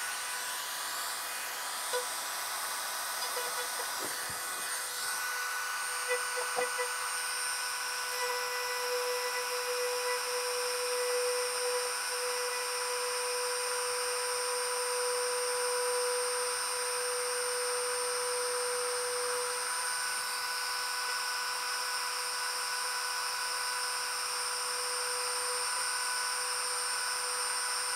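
Handheld rotary tool running at steady high speed, a constant whine, as its spinning tip of 2.85 mm PLA filament is rubbed against PLA 3D-printed parts to melt and friction-weld them. A few light ticks come in the first several seconds.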